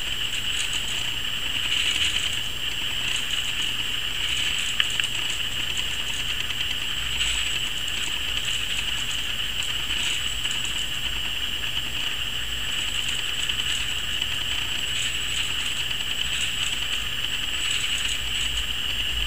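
LEGO Mindstorms NXT servo motors and their plastic gear trains whirring as they drive the two wheels of a self-balancing NXTway robot back and forth in constant small corrections to keep it upright. The high whir is steady but swells and fades with the corrections, and there is one sharp click about five seconds in.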